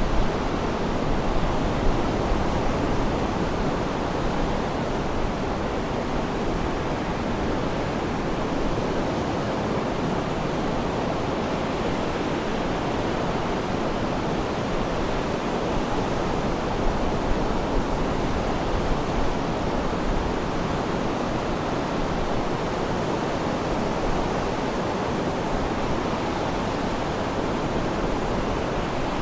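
Sea waves washing steadily, a continuous even rush of surf with no clear breaks between waves.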